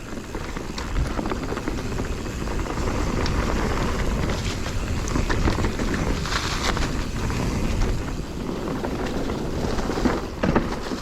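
Mountain bike riding fast down dirt singletrack: steady wind rush on the microphone and tyre noise on loose dirt, with scattered knocks and rattles from the bike over the trail, a few sharper ones near the end.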